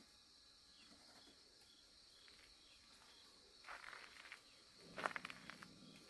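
Faint steady insect chirring, with footsteps crunching on dry dirt and gravel starting a little past halfway, loudest about five seconds in.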